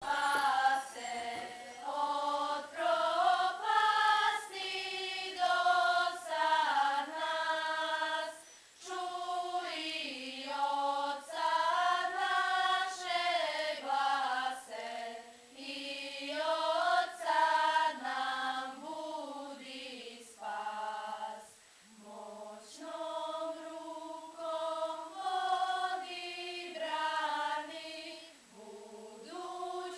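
Girls' choir singing together in phrases of a few seconds, with short breaks between them.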